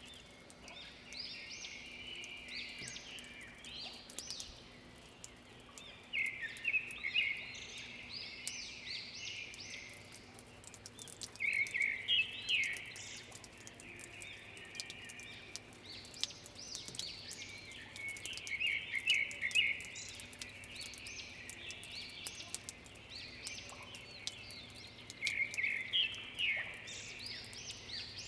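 Songbirds singing. A loud phrase of rapid chirps lasting a second or two comes roughly every six seconds, with quieter calls in between. Faint scattered ticks of dripping water after rain run underneath.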